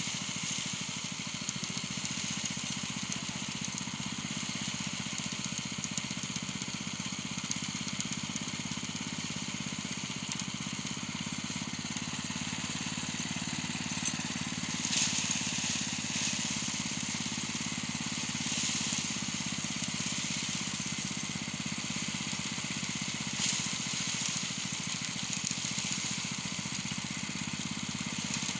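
Small engine running steadily, with a crackling rattle over it that flares up a few times.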